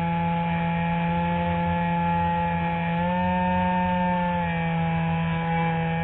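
The Spectra glider's electric motor and nose propeller running with a steady whine; the pitch rises about three seconds in, holds briefly, then drops back.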